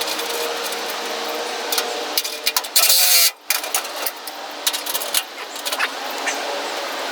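Metal clicks and clinks of tools and hardware being handled over a steady hum, with one short loud burst of noise about three seconds in that cuts off suddenly.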